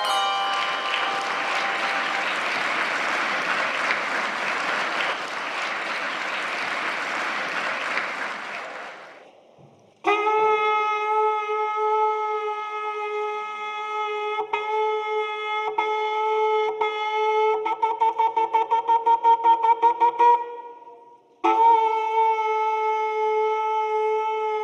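A shofar (ram's horn) being blown: a long steady blast, a few broken notes, a fast run of short staccato notes, then another long blast. Before it, a rushing wash of noise fades away over the first nine seconds or so.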